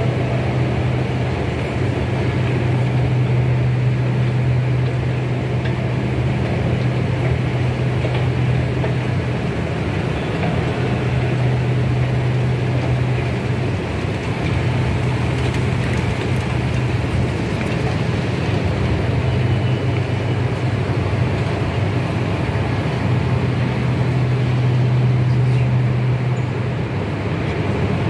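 Steady mechanical hum and rumble of a running escalator and the metro station's machinery, with a low drone that drops out briefly a couple of times.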